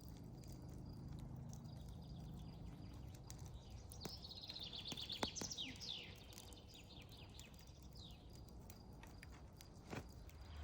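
Faint birdsong: scattered short chirps, with a quick run of repeated chirp notes about four seconds in, over a low steady background.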